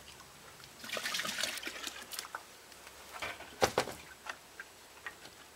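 Sugar syrup splashing into a bee feeder for about a second, then several sharp knocks and clinks as the feeder and containers are handled.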